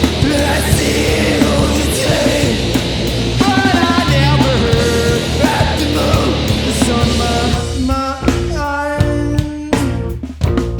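Live punk rock band playing loudly: full band with guitar, bass, drums and singing. About eight seconds in, the dense wall of sound drops back to sparser playing with separate notes and distinct drum hits.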